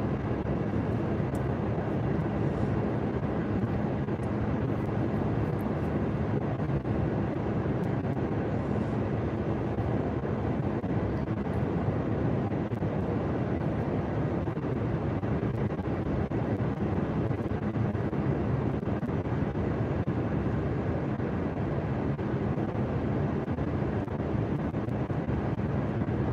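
Steady road and engine noise inside a moving car's cabin, a constant low rumble with a faint steady hum.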